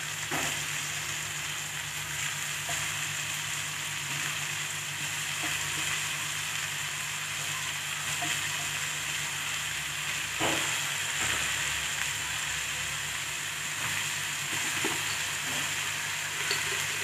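Finely chopped banana flower sizzling steadily in hot oil in a kadai, just after being added. Two short knocks come about half a second in and about ten seconds in.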